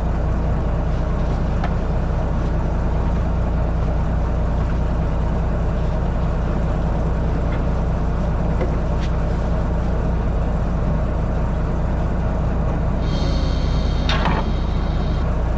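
Engine running steadily with a low, even hum and a few light clicks and knocks. Near the end comes a brief high-pitched squeal with a knock.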